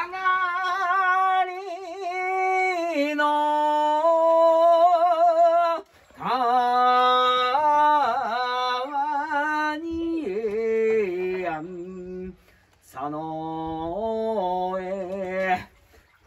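A man singing unaccompanied in a tenor voice, in long held notes with vibrato. The singing comes in three phrases with short breaths between them.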